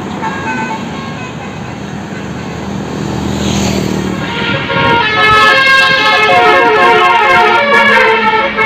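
A Flamboyan bus's telolet horn, a basuri multi-tone air horn, plays a loud, fast-changing melody of several notes starting about five seconds in. Before it there is bus engine and road noise.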